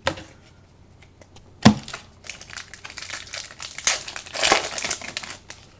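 Plastic wrapper of a trading card pack crinkling as it is handled and opened, after a single sharp tap about a second and a half in. The crinkling runs for about three seconds.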